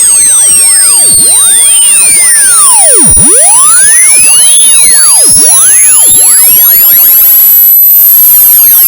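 Hearing-test tone: a single very high, loud pure tone rising slowly in pitch, with fainter whistling tones swooping down and back up beneath it.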